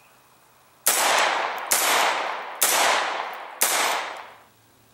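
AR-15 rifle fired semi-automatic, four aimed shots about a second apart. Each shot rings out with an echo dying away over most of a second.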